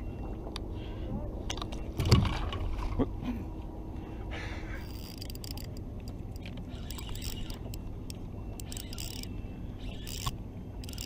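Fishing tackle being handled: scattered clicks and scrapes over a steady low rumble, with a louder knock about two seconds in.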